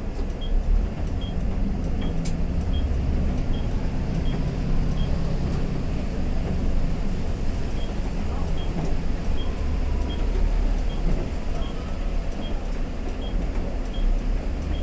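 City bus running on a wet road, heard from inside: a steady low engine and road rumble. A short high tick repeats about every three-quarters of a second, stopping for a few seconds in the middle.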